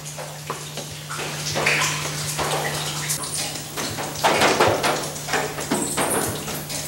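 Irregular splashing and trickling of water, with a steady low hum underneath.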